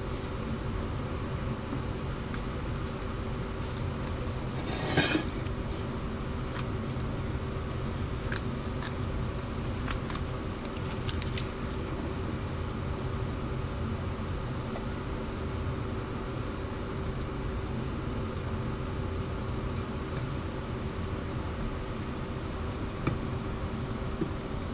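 Old, long-stuck tape being peeled off a metal part: short tearing and crackling sounds, mostly in the first half and loudest about five seconds in, over a steady low hum.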